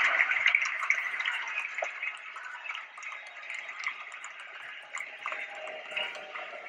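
Audience applauding, loudest at the start and dying down after a few seconds to scattered claps.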